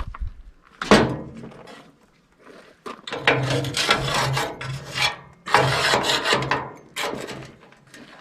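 A hand scraper dragged over the RV's metal frame, peeling off heat-softened glue and sealant in several rasping strokes: a short sharp one about a second in, longer strokes in the middle and a shorter one near the end.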